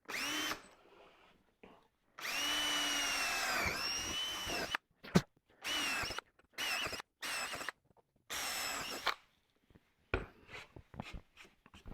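Cordless drill boring holes in plywood, run in several trigger bursts: one long run whose pitch sags under load, then several short ones, followed by a few light clicks and knocks.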